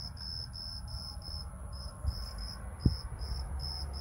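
Insects chirping in a steady rhythm, about three high chirps a second, over a constant high whine. There is a single light thump about three seconds in.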